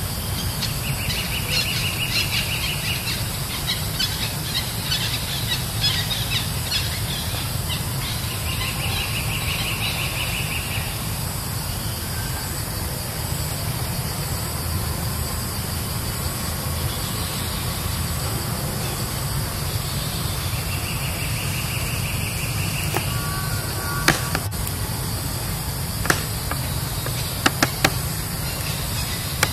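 Outdoor ambience with a steady low rumble and three high, pulsed trills of about two seconds each, typical of an insect or bird calling: one near the start, one about nine seconds in and one about twenty seconds in. A few sharp clicks come near the end.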